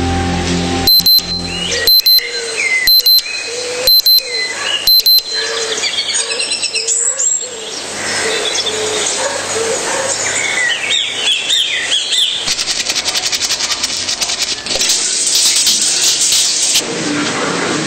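Film soundtrack played over hall loudspeakers: five loud, high electronic beeps about a second apart, then birds chirping, then water spraying from a shower for the last few seconds.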